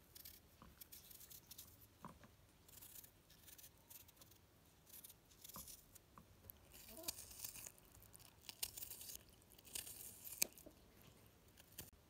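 Dry rustling and crinkling in short, irregular bursts, with a few light knocks; the sharpest click comes near the end.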